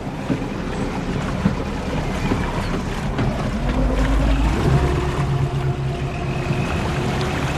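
Fishing trawler's engine rising in pitch as it revs about halfway through, then running steadily.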